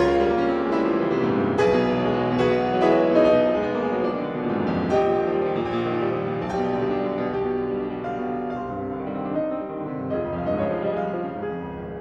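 Solo piano music in a classical style: struck chords and notes that ring on, growing gradually softer.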